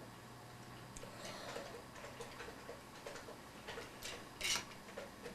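Faint, irregular clicks and small squeaks of plastic toilet fill-valve parts being handled and twisted apart by hand, with one louder brief rasp about four and a half seconds in.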